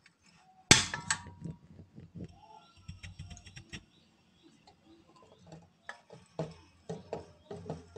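A loud sharp click about a second in, followed by a run of irregular light clicks and knocks.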